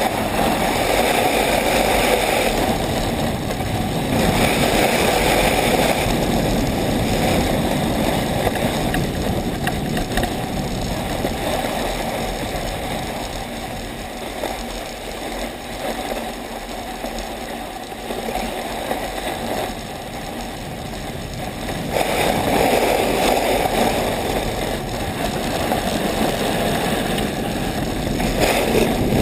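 Wind buffeting the action camera's microphone, with the hiss of runners sliding over packed snow, during a fast downhill ride. It eases off in the middle and picks up again about two-thirds of the way through.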